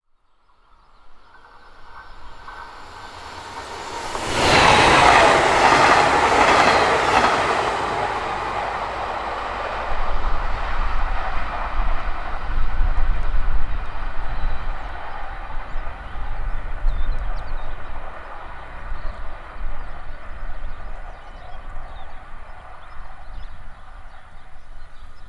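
A train approaching and then passing close by at speed: the sound builds over the first few seconds, turns into a loud rush about four seconds in, and runs on as a long rolling rumble of wheels on rails that slowly eases off.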